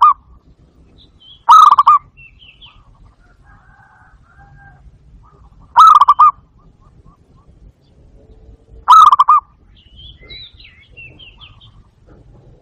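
Barred dove (zebra dove) calling: short, rolling, pulsed coos, each under half a second, three times a few seconds apart. Faint high chirps of other birds sound between the calls.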